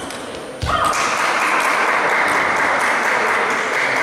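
Table tennis ball clicking in a rally, then about half a second in a thud and a short shout as the point ends, followed by steady applause and cheering from spectators in the hall.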